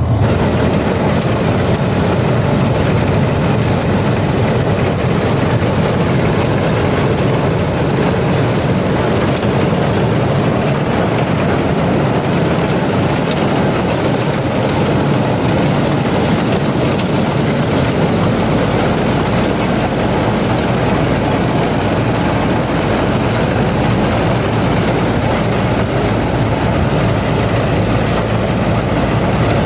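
Combine harvester with a corn head running with its machinery going: a loud, steady mechanical noise with a faint high whine, stepping up from an engine idle right at the start.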